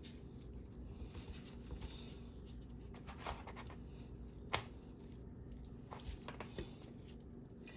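Gloved hands working a raw leg of lamb, pressing garlic cloves into slits in the meat: faint handling noises with scattered small clicks, the sharpest about four and a half seconds in.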